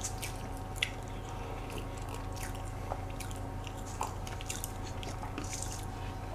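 Soft chewing and mouth sounds of people eating slices of banana chiffon sponge cake, with small scattered clicks of metal forks against the plastic cake trays.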